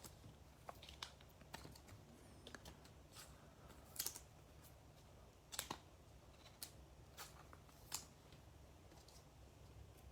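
Faint, scattered clicks and taps of trading cards being handled and sorted, about a dozen of them, the sharpest about four and five and a half seconds in.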